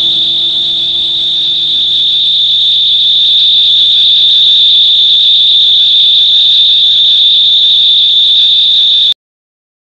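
A loud, steady, single high-pitched tone that holds one pitch and cuts off suddenly about nine seconds in.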